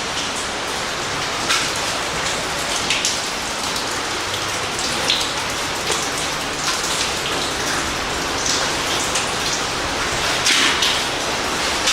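Steady rush of falling water, like rain, with irregular louder splashes every second or two.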